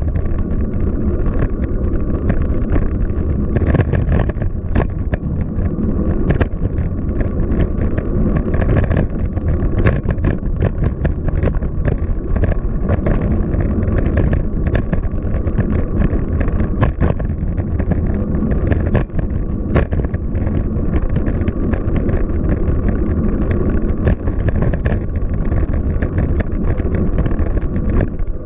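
Wind buffeting the microphone on the move, over a steady rumble of city traffic, with scattered short clicks and knocks throughout.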